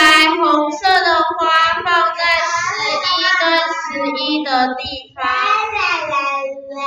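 A child singing in a high voice, holding long, gliding notes, with a short break about five seconds in.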